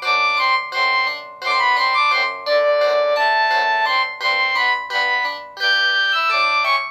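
Mobile phone ringtone playing: a polyphonic, piano-like melody in quick runs of bright notes, with short breaks between phrases.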